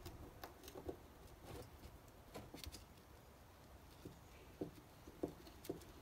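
Faint, irregular clicks and taps of a screwdriver turning small screws into a plastic neutral safety switch housing, with a few sharper clicks in the second half.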